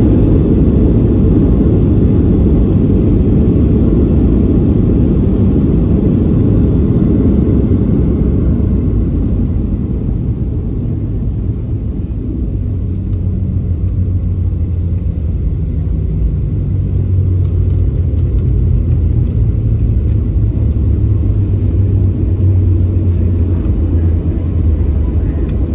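Cabin noise of a Boeing 737 on its landing rollout: a loud low rumble of engines and wheels on the runway that eases off about ten seconds in as the jet slows. It settles into a steadier low engine hum as the aircraft rolls toward the taxiway.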